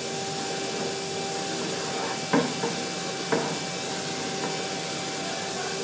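Vacuum cleaner running steadily, a hissing rush with a constant motor whine, with a few sharp knocks a little over two seconds in and again about a second later.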